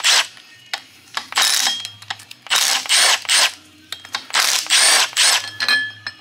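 Milwaukee M12 Fuel compact cordless impact wrench on the crankshaft bolt of an LS engine block, run in a series of short trigger bursts about a second apart. Small metal clinks follow near the end as the timing sprocket is handled.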